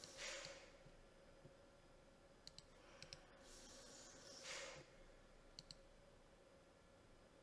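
Near silence with a few faint computer mouse clicks, heard as quick double ticks around the middle, and two soft breaths into the microphone, one near the start and one a little past the middle, over a faint steady hum.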